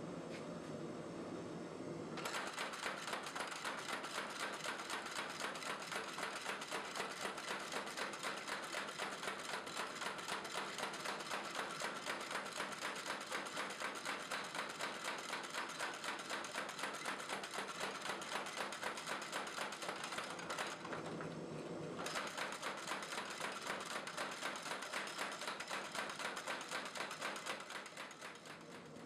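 Homemade wooden beam-style power hammer running, its head striking in a fast, even rhythm of rapid blows. The hammering stops for about a second partway through, then resumes and dies away near the end.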